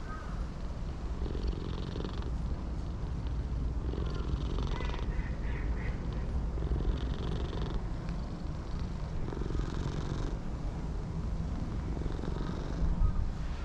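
A cat purring close by, swelling and easing in slow cycles every two to three seconds, over a steady low rumble of wind.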